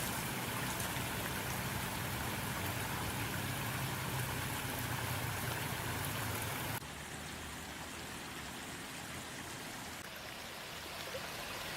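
Steady hiss of running water from a stream or river. About seven seconds in it cuts abruptly to a quieter version of the same noise.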